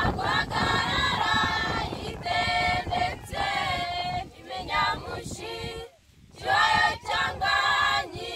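Young women's choir singing a Christian song in Kinyarwanda, several voices together, with a short pause for breath about six seconds in.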